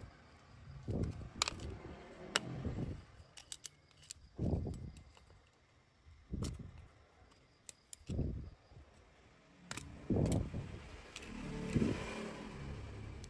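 Small-scale handling noise of a smartphone teardown: a metal pry tool and tweezers tick and click against the phone's frame and parts, with about six soft bumps as the phone and tools are moved.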